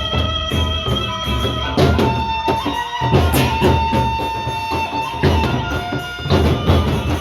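A Sasak gendang beleq ensemble playing an opening piece: large drums beat a steady rhythm under long held melodic tones, with sharp crashing strikes about every one and a half to two seconds.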